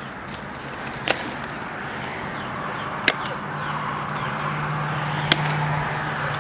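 Hand pruners snipping through dead juniper stems three times, about two seconds apart, cutting out growth killed by mouse girdling. A low steady hum rises in the background from about halfway.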